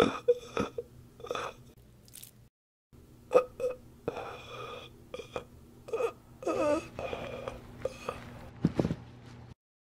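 A person groaning, gasping and moaning in short bursts, as if in pain, with a wavering moan about six and a half seconds in. The sound cuts out abruptly for a moment near two and a half seconds and again just before the end.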